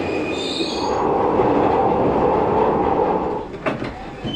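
Glasgow Subway train running and braking on the rails. There is a brief high squeal about half a second in, then a louder stretch of wheel and brake noise that falls away near the end with a few clicks.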